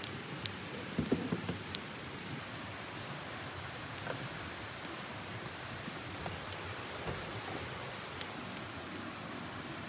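Wood campfire crackling, with sharp pops clustered in the first two seconds and a couple more near the end, over a steady hiss.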